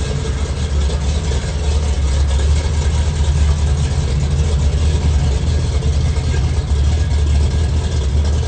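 Chevrolet 468 cubic-inch big-block V8 in a Chevy 3100 pickup, running at low speed as the truck rolls by, with a deep, steady rumble.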